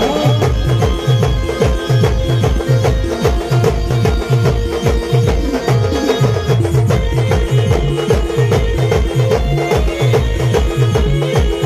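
Adivasi village band playing dance music: big drums beat a fast, steady rhythm, about four deep beats a second that each drop in pitch, under a held melody line.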